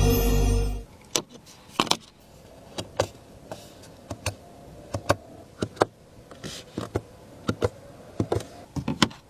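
Background music cutting off, then a string of light, irregularly spaced clicks and taps, about two a second.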